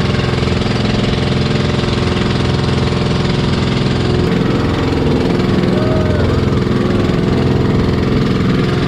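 Motorized outrigger boat's engine running steadily at a constant speed.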